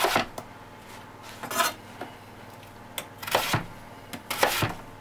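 Kitchen knife cutting potatoes into large chunks on a plastic chopping board: several irregular knocks as the blade goes through and meets the board.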